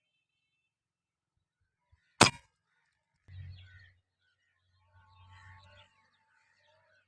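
A single sharp shot from a P10 airgun about two seconds in, followed by two short stretches of low rustling.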